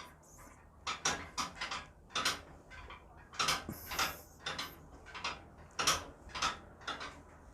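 Metal knocking and clacking from the Blackbet AK-7 3D Smith machine, an irregular run of sharp knocks about two a second. It is the frame rattling against the locking pin, which sits loosely in its hole: the play at the pin is the cause of the noise.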